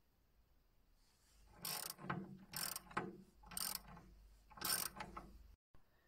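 Four short mechanical rattling clatters, about a second apart.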